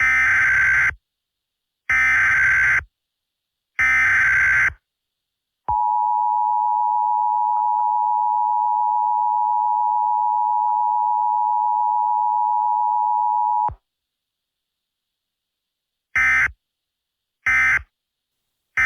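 Emergency Alert System tones. Three data bursts of about a second each, then the steady two-tone attention signal for about eight seconds, then three short data bursts near the end.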